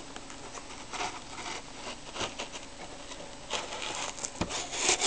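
Scissors scraping and snipping at a small cardboard box to cut it open: irregular light scratching and clicking, with a sharper click near the end.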